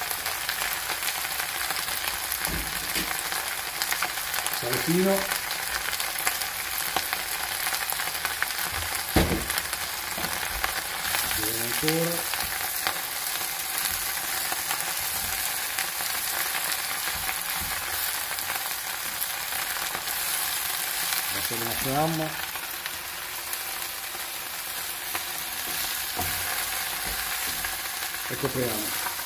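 Cime di rapa (turnip greens) sizzling in olive oil in a frying pan as a wooden spoon stirs and turns them: a steady frying hiss. There is one knock about nine seconds in and a few short rising squeaks.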